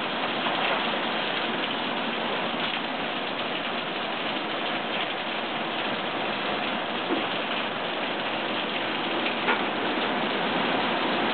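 Steady rain falling on the water of a swimming pool, with a couple of small taps in the second half.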